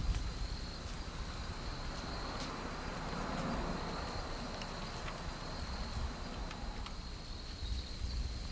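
An insect trilling steadily at one high pitch, over a low, uneven rumble, with a few faint sharp ticks.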